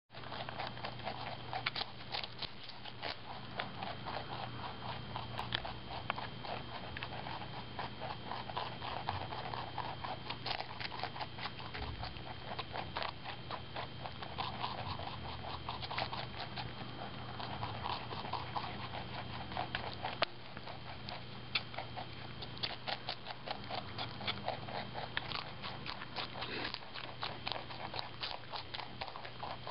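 Pet rabbits chewing chunks of raw celery: a fast, uneven run of small crisp crunching clicks, several a second, over a steady low hum.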